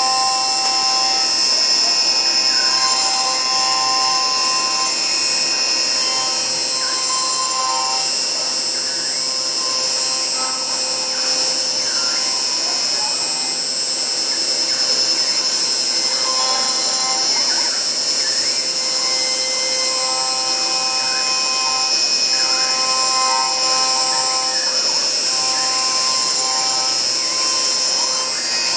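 CNC wood router spindle running with a steady high-pitched whine as the bit carves a wooden workpiece turning on a rotary axis. Shorter mid-pitched tones come and go every second or two.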